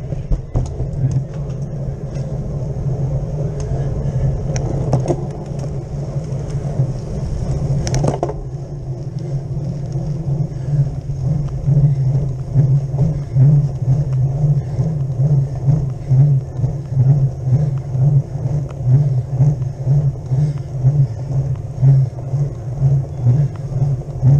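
Riding noise of a cyclocross bike on tarmac, picked up by a handlebar-mounted camera: a loud low rumble of wind and road. Clicks and rattles come through in the first seconds, with a sharp knock about eight seconds in. From about halfway the rumble pulses about twice a second.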